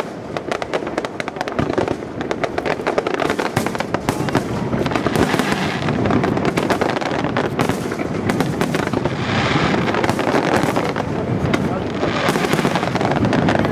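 Fireworks display: a dense, continuous run of aerial shell bursts with crackling and popping, many bangs overlapping, growing a little louder about five seconds in.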